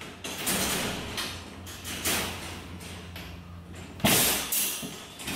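Black wire dog-crate panels rattling and clanking as a side panel is held upright and worked onto the base panel, with a louder clank about four seconds in.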